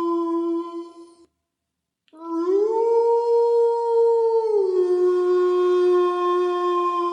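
Wolf howling: a long steady howl cuts off about a second in, and after a short pause a new howl rises in pitch, holds, then drops a little past the midpoint and carries on steadily.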